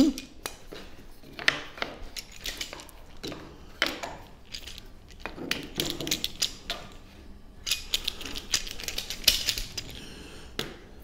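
Irregular clicks, knocks and rattles of a steel screw clamp and small wooden cauls being handled and set in place on a workpiece.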